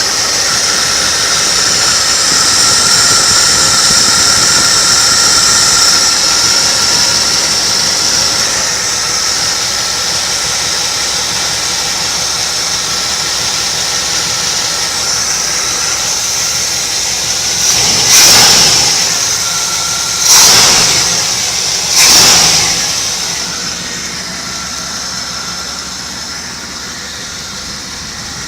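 Chevrolet LT1 V8 engine running steadily, then revved briefly three times in quick succession about two-thirds of the way through before settling back.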